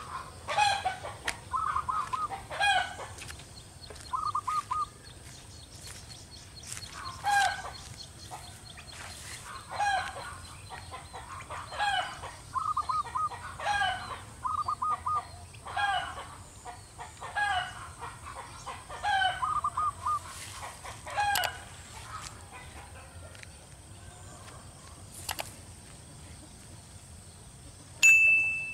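Zebra doves calling: short bursts of rapid, staccato cooing notes, repeated every couple of seconds. Near the end, a sharp click and a bright ding.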